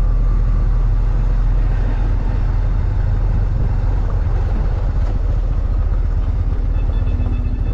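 Bajaj Pulsar NS125 single-cylinder engine running steadily as the motorcycle rides over a gravel road, with heavy wind rumble on the microphone.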